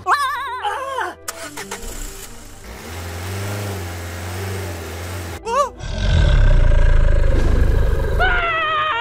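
Added sound effects rather than live sound: a wobbling cartoon warble, then a low engine hum, a short up-and-down chirp, and a louder engine rumble from about six seconds in, ending with a set of falling whistle tones.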